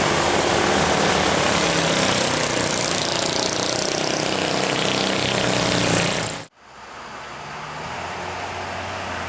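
Loud engine and road noise from a large vehicle, most likely a tour bus, running close by. The noise cuts off abruptly about six and a half seconds in, and a quieter steady engine rumble follows.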